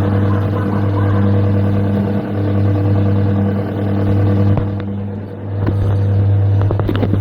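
Coin-operated airplane kiddie ride running: a steady electric motor hum that dips briefly about five seconds in, followed by a few clicks and knocks near the end.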